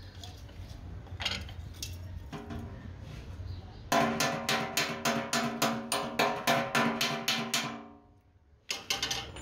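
Hammer striking the welded edge of a metal motorcycle fuel tank being repaired for a leak: a few scattered knocks, then a quick, even run of ringing metal strikes at about four a second, a short break, and a few more strikes near the end.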